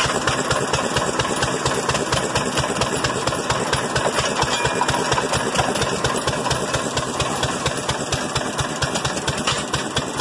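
Antique single-cylinder stationary gas engine running steadily at a governed speed, its firing a rapid, even knocking.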